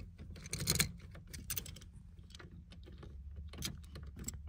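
Clicks and rattles of a key being worked in a Toyota's ignition, with no engine cranking or starting: the car is dead, which the owner takes for a flat battery.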